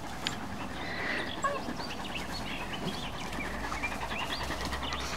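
Scattered faint, short, high-pitched animal chirps and squeaks over a low outdoor background.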